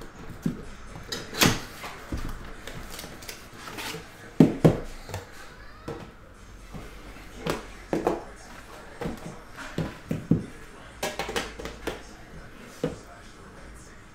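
Hands handling a card box's cardboard outer sleeve and metal tin: scattered rustles, scrapes and light knocks of cardboard and tin. The loudest are two sharp knocks about four and a half seconds in.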